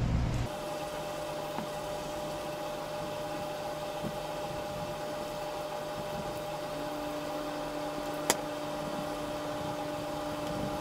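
A steady machine-like hum with a few constant tones; a second, lower tone joins about seven seconds in, and there is one sharp click a little after that.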